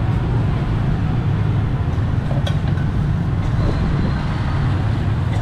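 Steady low rumbling background noise, with a brief sharp click about two and a half seconds in.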